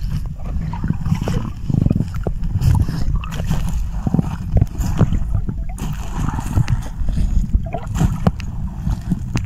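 Sea water sloshing and churning around a camera held at the surface, heard as an uneven low rumble with small splashes and clicks.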